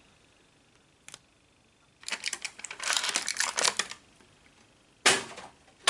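Packaging being handled: a run of crackly crinkling and clicking for about two seconds, then a sharp click or snap about five seconds in, with another near the end.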